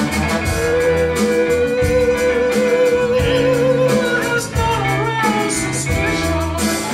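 Musical theatre song: singing over a band with a steady beat, one note held for about three seconds near the start before the melody moves on.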